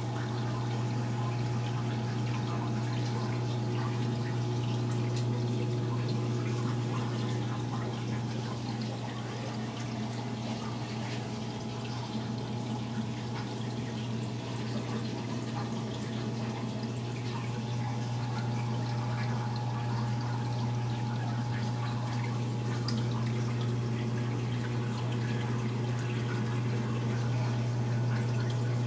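Reef aquarium equipment running: a steady low hum from the pump, with water trickling and dripping.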